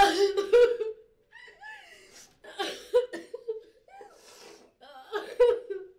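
A woman sobbing in loud, broken bursts, with breaths between.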